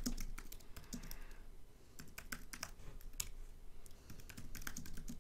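Typing on a computer keyboard: a run of irregular key clicks as a terminal command is typed.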